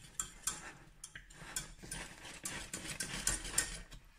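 A wire whisk clicking and scraping against the sides of a stainless steel saucepan in quick, irregular strokes, as dissolved vanilla pudding mix is whisked into hot apricot juice.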